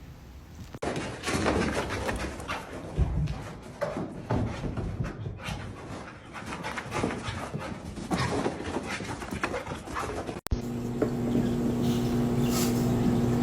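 A dog panting in quick, uneven breaths. Near the end it cuts off abruptly and a steady low hum takes over.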